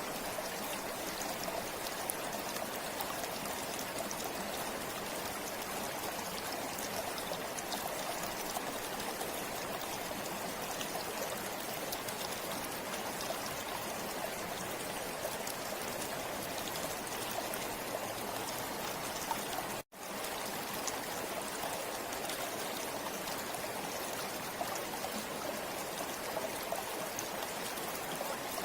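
River water flowing steadily over stones, an even rushing and babbling. The sound drops out for an instant about two-thirds of the way in, then comes straight back.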